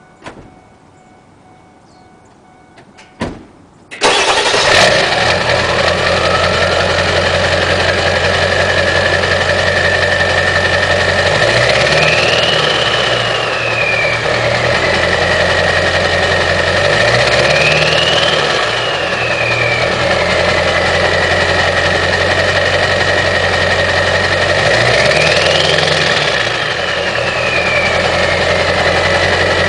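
2001 Ford F-250's 7.3-litre Powerstroke turbo-diesel V8, straight-piped with no muffler or catalytic converters, starting suddenly about four seconds in after two small clicks. It then idles with a steady turbo whistle that rises as the turbo spools up, and three brief revs push the whistle higher before it falls back.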